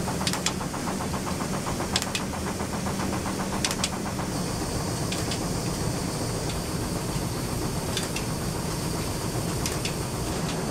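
Water-driven mill machinery running: a steady rumble and hum from the belt drives and millstone gearing, with a fine rapid rattle in the first few seconds and sharp clicks every second or two.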